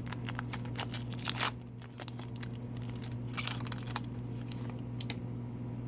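Trading-card pack wrapper crinkling and tearing as it is opened, in small crackles with a louder rip about a second and a half in.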